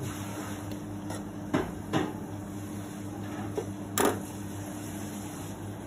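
Several clinks and knocks of a metal spoon and ceramic bowls on a stainless-steel counter, the loudest about four seconds in, over a steady low hum.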